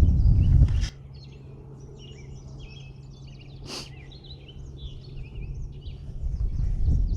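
Many birds chirping and singing over a low steady hum. A loud low rumble cuts off sharply about a second in, a single sharp click comes about four seconds in, and the rumble builds again near the end.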